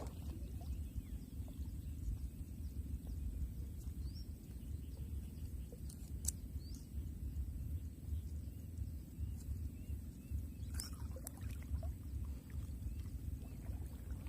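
Outdoor ambience: a steady low rumble, with scattered faint clicks and a few short chirps. A brief noisy rustle comes about eleven seconds in.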